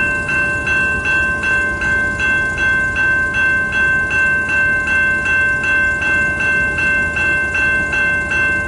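Railroad grade-crossing warning bell ringing steadily, about two and a half strokes a second, with its flashing signals active while a stopped freight train holds the crossing.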